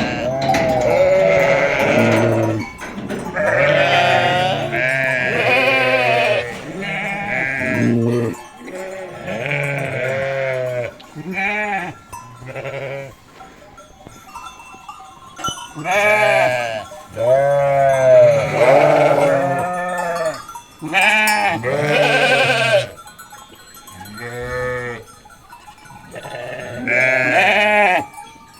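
A flock of sheep bleating, many loud calls overlapping one after another, with a couple of brief lulls.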